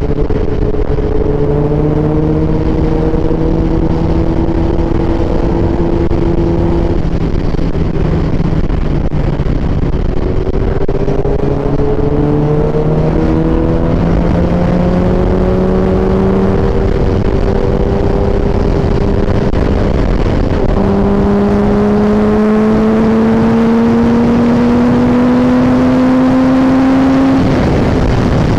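A vehicle engine running at speed under steady wind and road noise. Its note climbs slowly in several stretches, with a few steps in pitch, and falls away near the end.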